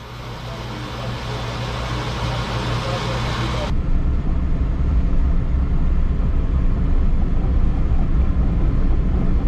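Vehicle on the road: steady engine and road noise with a heavy low rumble, fading in at the start. About three and a half seconds in the hiss drops away and the low rumble grows louder.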